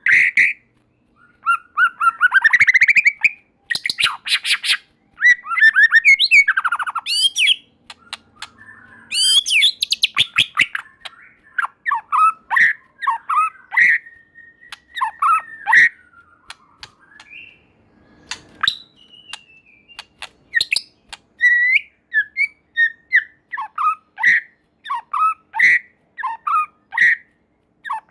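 White-rumped shama singing in full voice: fast, rattling trill passages in roughly the first seven seconds, then a quick run of short, clear whistled notes that sweep up and down in pitch.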